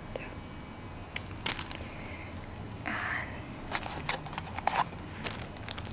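Plastic cat-figure phone-strap charms with small metal clasps clicking and clattering against each other as they are handled, in scattered sharp ticks, with a brief soft rustle about halfway through.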